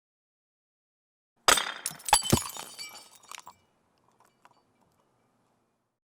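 A pane of glass shattering: a sharp crash about a second and a half in, two more hits close behind, then shards tinkling and dying away, with a few last small pieces clinking down a second or so later.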